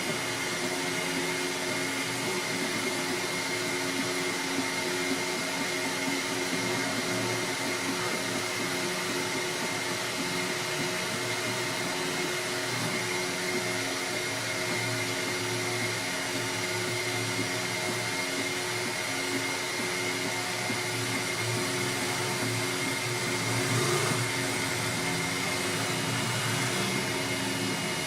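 Steady whir of small electric motors and fans running, with a constant high whine and a low, slightly uneven hum; a brief swell about 24 seconds in.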